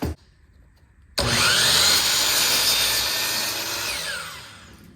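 Electric power saw cutting a pine fence picket. The motor starts suddenly about a second in with a rising whine, cuts for about three seconds, then winds down with a falling whine.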